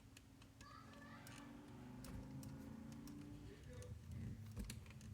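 Faint scattered clicks and taps of small RC car parts being handled and fitted by hand, over a low steady hum.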